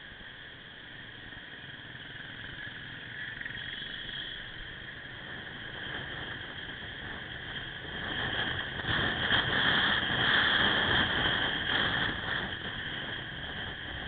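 Riding noise from a Suzuki Axelo motorcycle in city traffic, heard through a small on-board camera microphone: a steady hiss of wind and traffic with no distinct engine note. It grows louder about eight seconds in and eases off near the end.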